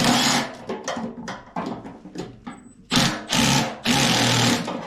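Cordless drill/driver running in three short bursts, driving the bolts that tighten a furnace blower motor's mounting.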